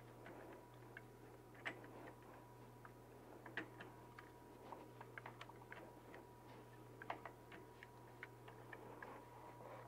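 Faint, irregular light clicks and taps of a hand tool and metal parts as the screw of a new foot peg is fitted on a Harley-Davidson Street Bob, over a faint steady hum.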